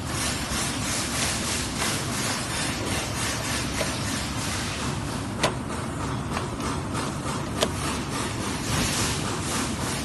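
Plastic wire-harness connectors on a massage chair's control board being handled, with two sharp clicks, about five and a half and seven and a half seconds in, over a steady background noise.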